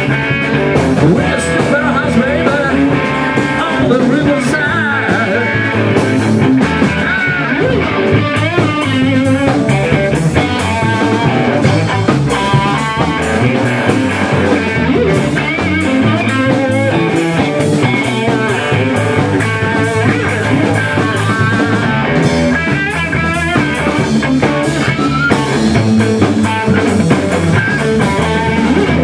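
Live rock band playing: electric guitar with bending notes over bass guitar and a steady drum beat, amplified in a small room.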